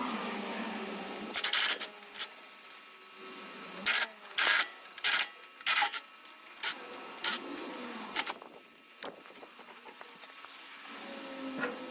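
Short, sharp scraping strokes of hand-tool work, about ten of them in irregular bursts, each a fraction of a second long.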